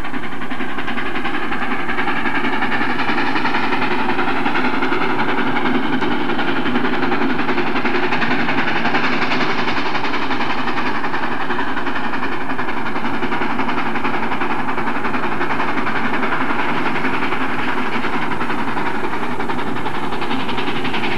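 Steam train passing: a steady, even rush of wheel and rail noise with no breaks.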